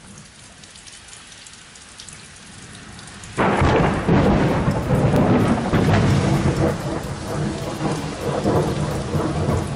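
Steady rain falling during a thunderstorm. About three and a half seconds in, a loud clap of thunder breaks and rolls on in a long rumble, then cuts off suddenly.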